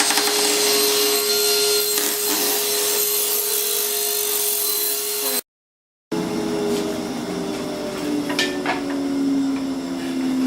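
Table saw running and ripping a strip of maple hardwood: a steady motor hum under the rasp of the blade through the wood. The sound breaks off abruptly about five seconds in and returns under a second later, the hum then sinking slowly in pitch.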